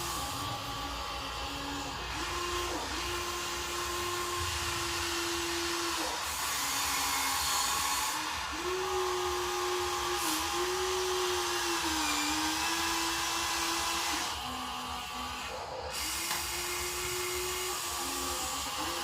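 Small electric motors and gearboxes of a radio-controlled toy construction vehicle whining steadily as they run, the pitch dipping briefly several times and dropping to a lower tone for a couple of seconds near the end.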